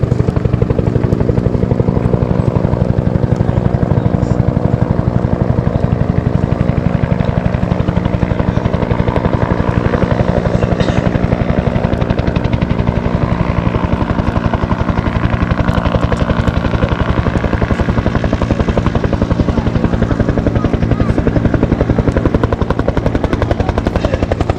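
Bell UH-1 "Huey" helicopter in flight, its two-bladed main rotor beating out a steady, rapid blade slap over the turbine's hum.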